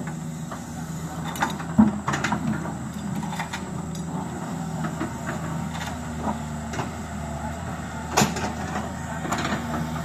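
Diesel engine of heavy earthmoving machinery running steadily, with scattered knocks over it; the sharpest comes about two seconds in and another near the end.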